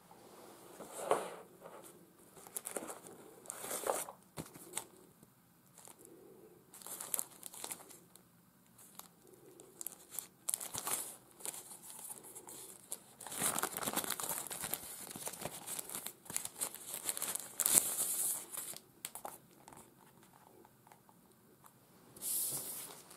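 Packaging being handled by hand: crinkling and rustling in irregular bursts, densest and loudest about halfway through.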